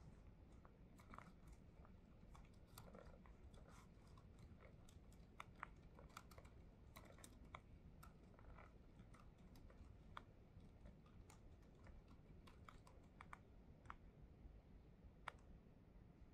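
Faint, irregular typing on a laptop keyboard: scattered soft key clicks with an occasional sharper tap, over a low room hum.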